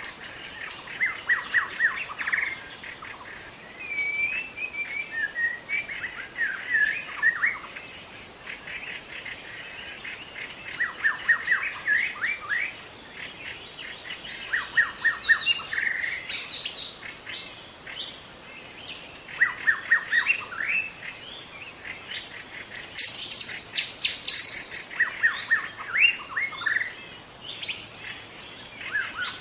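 White-rumped shama singing: short phrases of rapid sweeping notes, repeated with brief pauses between them. The loudest phrase, a little past the middle, climbs to higher notes.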